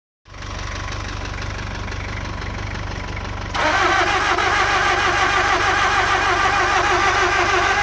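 A steady low hum, then about three and a half seconds in the starter cranks the 2002 Nissan X-Trail's 2-litre four-cylinder petrol engine. It turns over with an even, rhythmic whir but never fires, a no-start despite fuel and spark being present.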